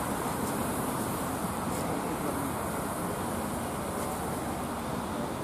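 Steady street traffic noise, an even wash of passing cars with no single event standing out.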